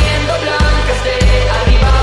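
Instrumental passage of indie pop music: a heavy kick drum on a steady beat about every 0.6 seconds under sustained keyboard tones.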